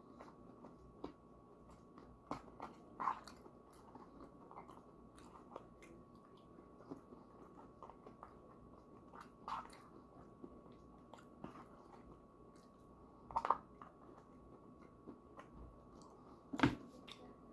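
Close-up chewing and biting of mincemeat pie with pastry crust, with several sharp clicks of a metal fork against the foil pie tin. A faint steady tone sits underneath.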